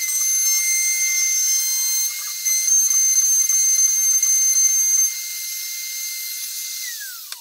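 Compact router on a Shapeoko 3 CNC machine running at high speed with a steady high whine, cutting into the wood for the first five seconds or so and loudest in the middle of that stretch. Then it runs lighter, and near the end the whine falls in pitch as the router spins down.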